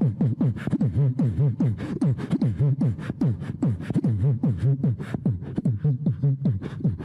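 Man beatboxing an imitation of a subwoofer pumping out a bass-heavy beat: a fast, steady run of deep hits, each dropping in pitch, with sharp clicks on top.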